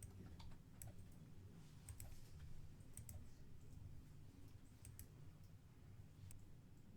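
Faint, scattered clicks of a computer mouse, about seven over several seconds, over a low steady hum.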